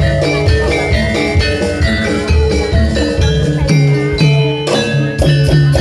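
Live Javanese jaranan accompaniment: rapid struck, bell-like pitched notes, as from gamelan-style metallophones, over drum beats.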